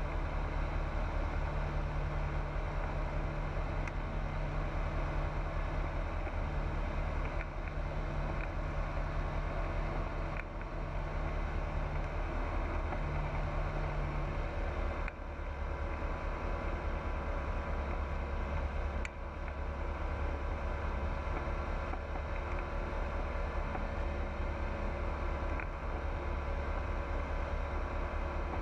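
Pipistrel Virus light aircraft's engine and propeller running with a steady drone, with a few brief dips in level.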